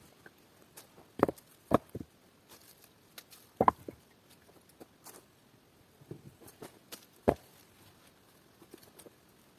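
Irregular sharp knocks, four louder ones (about a second in, half a second later, near four seconds in and past seven seconds), amid smaller crackles and rustles of hands-on work with stone and wood.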